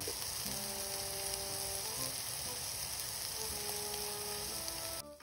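Cubes of meat sizzling in hot fat in a frying pan: a steady, dense hiss that cuts off suddenly near the end.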